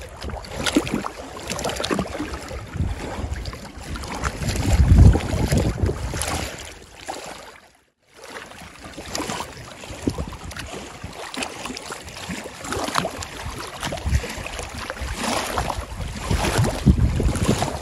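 Wind buffeting the microphone in gusts, with water sloshing and splashing against the rocks at the lake edge as a trout is released by hand. The sound drops out briefly about eight seconds in.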